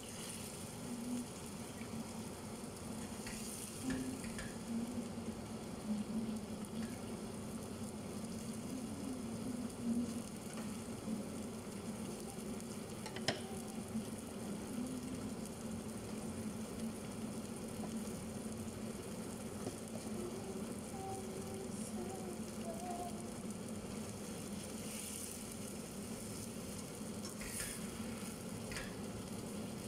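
Food sizzling as it fries in a stainless steel pot over a gas flame, stirred now and then with a spatula; a single sharp click about 13 seconds in.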